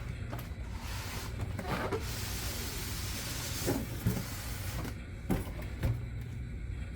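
A cardboard box being opened by hand: a spell of scraping and sliding cardboard about two seconds in, and a few light knocks of packaging being handled, over a steady low hum.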